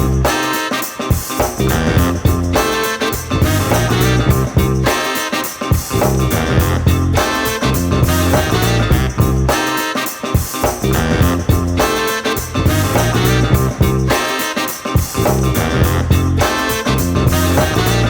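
Upbeat background music with guitar, a bass line and a steady beat.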